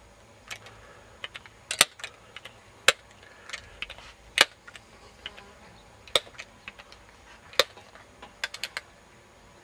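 A run of sharp, irregular clicks and snaps, five of them much louder than the rest, spaced about one to two seconds apart.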